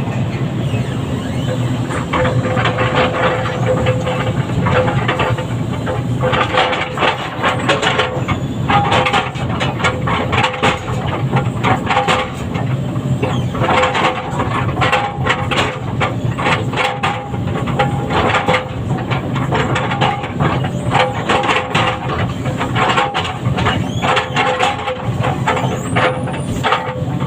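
Heavy diesel machinery running steadily, with a constant low engine drone and a steady whine, under frequent irregular metallic clatter and rattling.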